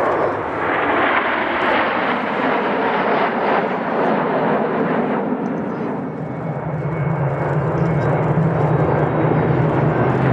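Aircraft flying past: a loud rush of engine noise, strongest in the first few seconds and easing off. From about six seconds in, a steady low engine hum builds as another pass comes in.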